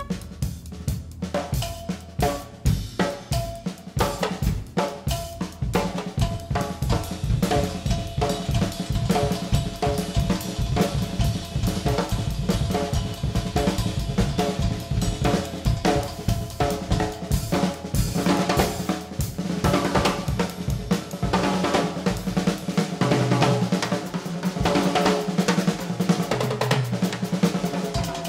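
Drum kit playing a busy pattern of snare, bass drum and cymbals in an instrumental band recording, with sustained notes from other instruments underneath.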